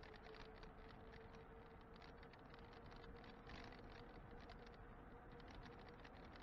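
Faint, muffled riding noise from an e-bike: a steady electric-motor whine with rapid light clicking and rattling from road vibration.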